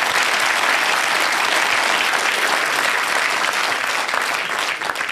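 Studio audience applauding, a steady dense clapping that eases off slightly near the end.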